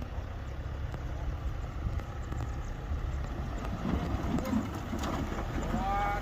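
Heavy earthmoving machine's diesel engine running with a steady low rumble. A brief higher call sounds near the end.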